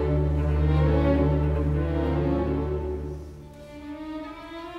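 Background music of held string chords over a deep sustained bass note; the bass drops away and the music turns quieter about three and a half seconds in.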